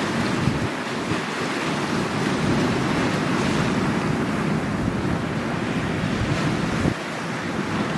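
Sea waves washing steadily on the shore, with wind buffeting the microphone in low gusty rumbles.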